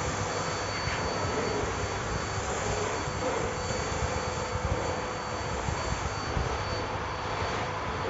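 Bosch BGS21X320 bagless canister vacuum cleaner running steadily: a rush of air with a steady high whine, while its floor nozzle is pushed back and forth over a laminate floor.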